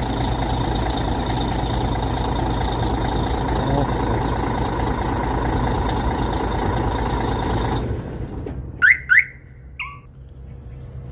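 Hyundai Xcient truck's diesel engine idling steadily, then shutting off suddenly about eight seconds in. Right after, the truck's aftermarket alarm gives two quick rising chirps and then a short beep.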